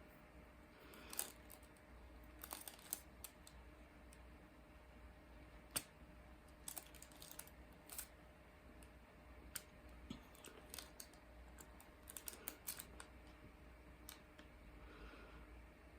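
Irregular small clicks and taps, some in quick clusters, from hands working at a craft canvas, over a faint steady hum.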